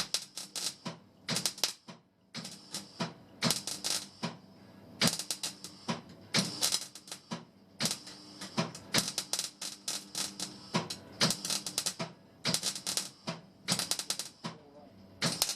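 Welding of the sheet-steel floor panel in short tack welds: crackling bursts of about half a second to a second each, repeating every second or two, over a faint steady hum.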